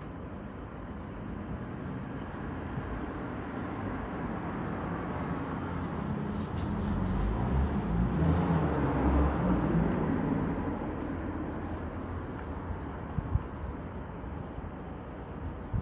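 Outdoor background noise: a low rumble that swells to its loudest around the middle and fades again, with a few faint high chirps in the middle and a couple of short clicks near the end.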